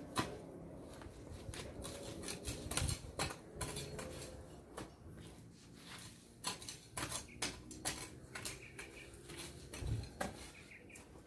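Metal blade of a long-handled lawn edger scraping and clinking in irregular strokes as it pulls cut grass away from the lawn edge.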